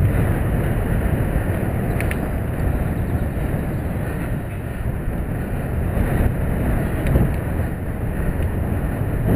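Wind rushing over the microphone of a moving bicycle, a steady low rumble. A brief faint high chirp comes about two seconds in.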